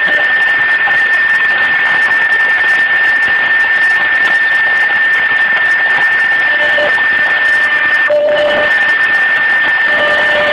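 CNC milling-engraving machine running, its spindle giving a steady high-pitched whine over a loud cutting noise. A second, lower tone comes and goes in the last few seconds.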